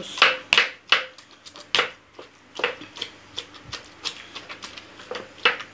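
Roasted eggplant, tomatoes and peppers being mashed in a steel bowl with the base of a thick-bottomed glass: a series of irregular wet squishes and clicks.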